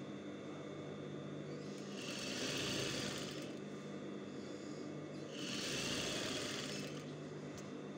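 Sewing machine stitching through fabric in two short runs, about two seconds in and again near the end, with the machine's steady motor hum between them.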